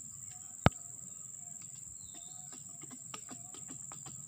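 Steady high-pitched insect drone with a few short bird chirps, and one sharp knock a little under a second in.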